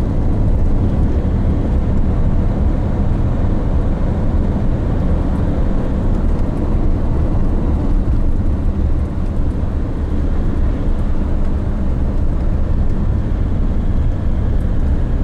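Steady low rumble of a car driving along a road, engine and tyre noise heard from inside the car.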